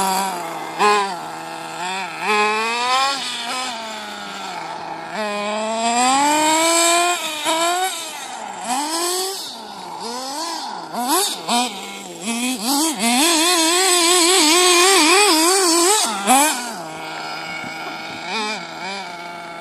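Radio-controlled buggy's motor revving up and down as it is driven fast, its pitch rising and falling with the throttle. About two-thirds through comes a loud stretch of quick, wavering revs.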